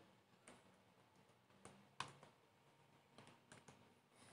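Faint computer keyboard keystrokes: about half a dozen separate, soft taps with pauses between them, the clearest about two seconds in, against near silence.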